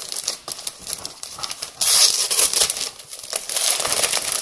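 Wrapping paper crinkling and rustling as a wrapped gift is unwrapped by hand, loudest about two seconds in.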